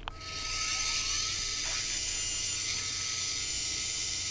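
Milling machine spindle running as a twist drill cuts a dowel hole in aluminium: a steady high hiss with a steady whine. It starts with a click just after the beginning and cuts off abruptly near the end.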